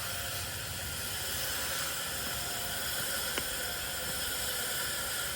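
Garden hose nozzle spraying water onto a heat pump's outdoor coil on a gentle, non-jet setting: a steady, even hiss.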